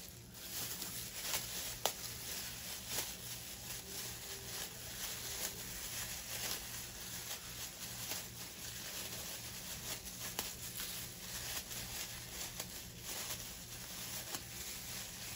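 Thin clear plastic disposable gloves rustling and crinkling as the hands knead a lump of two-part epoxy putty (JB Weld WaterWeld). The sound is a soft, irregular scatter of small crackles.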